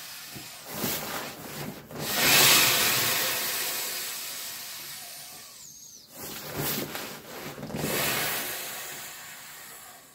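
Air rushing out through the open valves of an Exped Megamat 10 LXW self-inflating sleeping pad as it is rolled up tight and pressed down, with the fabric rubbing. It comes in two surges, about two seconds in and again about six and a half seconds in, each building quickly and then fading.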